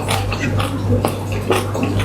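A person eating close to the microphone: irregular wet chewing, lip smacks and slurps, several a second, over a steady low hum.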